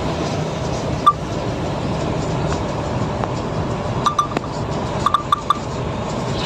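Steady engine and road noise inside the cab of a Volvo FH truck driving on a wet road. A single short clink comes about a second in, and quick clusters of clinks follow around four and five seconds in.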